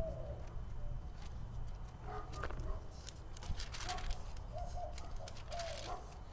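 A bird calling in short, repeated low notes over a steady low outdoor rumble, with brief rustling now and then.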